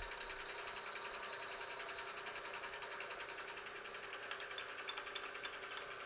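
Milling machine with an end mill taking a light deburring cut along the edge of an aluminium bar: a steady spindle hum with a fast, even ticking.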